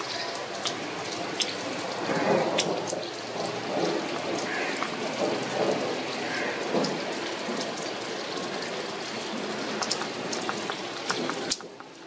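Rain falling, with many scattered drops tapping sharply close to the microphone over a steady hiss.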